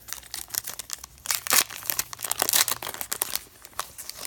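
Plastic trading-card pack wrapper crinkling and tearing as a pack is opened, in a run of irregular crackles that thin out near the end.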